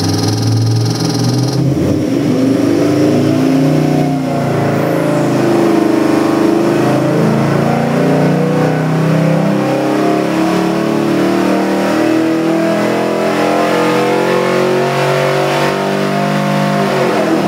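Ford 347 cubic-inch stroker small-block V8 (302-based, with FiTech fuel injection) on an engine dynamometer making a full-power pull under load. The pitch holds briefly, then rises steadily for about fifteen seconds, from around 1,400 rpm to nearly 5,900 rpm, and falls away sharply at the very end as the run finishes.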